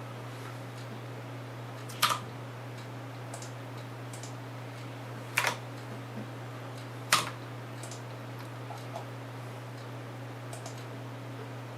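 Computer keyboard clicks: three separate sharp keystrokes, spread a few seconds apart, with fainter ticks between, over a steady low hum.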